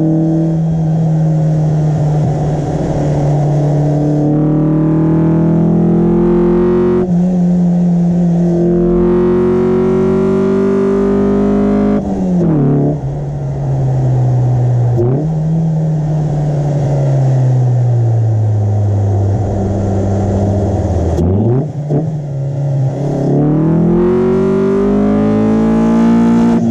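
Mitsubishi Lancer CE's 4G15 four-cylinder engine breathing through a pod air filter, revving under acceleration while driving. The pitch climbs in each gear and drops sharply at several gear changes, falls as the car slows for a few seconds, then climbs again near the end.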